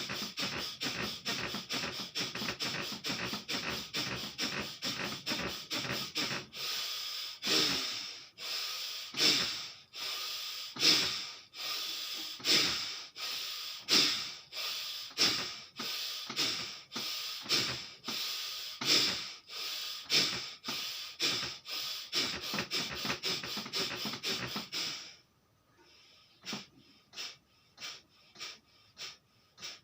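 Forceful, rhythmic breathing in and out through the nose in bhastrika pranayama (bellows breath). It starts with rapid pumping breaths, then changes to slower, deeper and louder breaths of about one a second. About 25 seconds in it suddenly becomes much softer and quicker.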